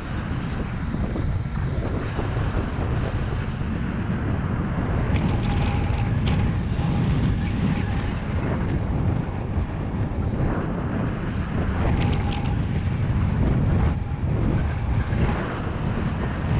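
Wind buffeting a paraglider pilot's action-camera microphone in flight: a steady, loud low rumble of rushing air that swells and eases slightly.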